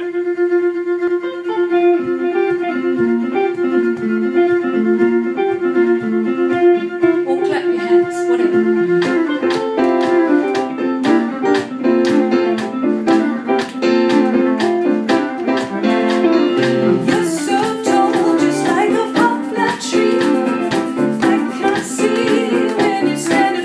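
Instrumental song intro: a viola holds one long, steady note over picked guitar. About eight seconds in, percussion comes in with a steady beat, and the viola and guitars move into a fuller, busier accompaniment.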